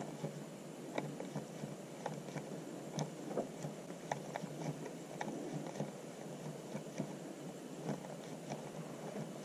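Small bait popping at the surface of a matted grass bed: scattered soft pops and clicks, like popcorn or Rice Krispies, several a second over a faint steady hiss. The sign of a live mat holding bait.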